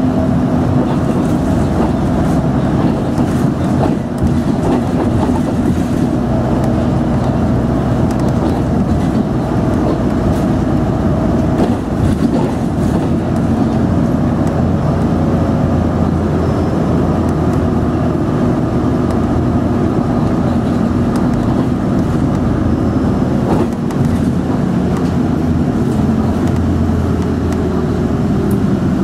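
Bus engine and road noise heard from inside the passenger cabin while driving: a steady low drone with a faint engine hum that drifts slightly in pitch and falls a little near the end.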